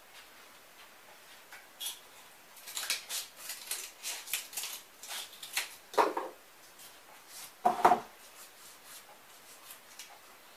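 Scissors cutting a small strip of cardboard: a quick run of crackly snips for about three seconds. Then two louder knocks about a second and a half apart.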